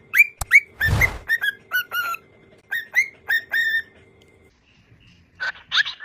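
Pet parrot whistling a rapid run of short chirps, each rising then holding, about three a second, with a brief rush of noise about a second in. After a short pause it gives two louder, sweeping calls near the end.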